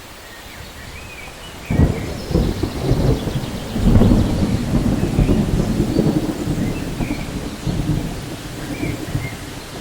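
Rain falling steadily, with a rumble of thunder breaking in suddenly about two seconds in, loudest around four seconds, then rolling on under the rain.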